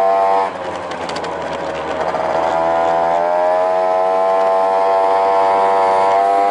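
Honda Tact AF24 scooter's small two-stroke engine under way, loud, with a buzzing note. The note drops as the throttle eases about half a second in, then climbs again and holds steady at cruising revs. The owner puts the loudness down to the aftermarket air cleaner he has just fitted.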